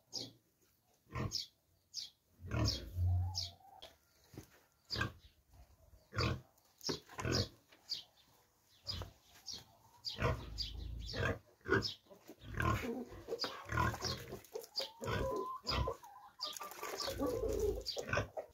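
Farm animals calling in short, repeated bursts, several close together at times, with a few brief higher cries among them.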